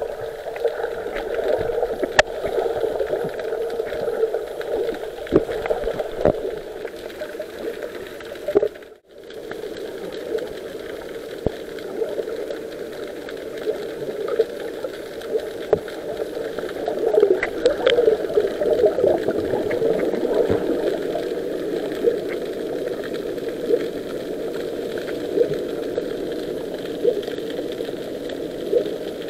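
Underwater ambience picked up through an action camera's waterproof housing: a steady, muffled rushing with scattered sharp clicks and knocks. The sound drops out briefly about nine seconds in.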